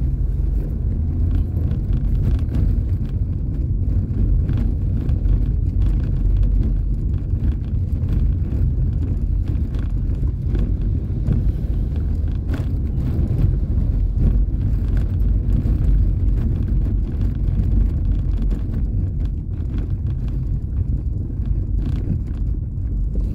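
A car driving over wet cobblestones, heard from inside the cabin: a steady low rumble of tyres on the stone road, with scattered light knocks.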